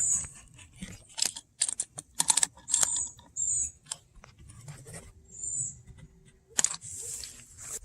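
Irregular sharp clicks and knocks of handling. A faint steady hum starts about five seconds in and ends with a loud click.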